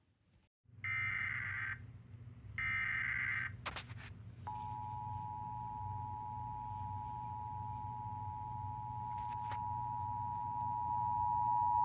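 Emergency Alert System tornado warning starting: two harsh, buzzy SAME data header bursts, each about a second long, then the steady two-tone EAS attention signal (853 and 960 Hz) beginning about four and a half seconds in and holding to the end, over a low hum.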